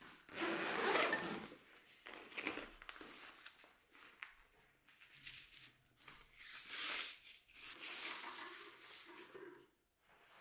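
Black fabric film changing bag rustling in several bursts as it is handled and closed up light-tight around a developing tank.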